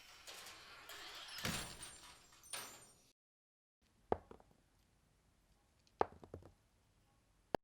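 Rustling handling noise, then, after a brief break, a few separate knocks and thuds, with a sharp click near the end.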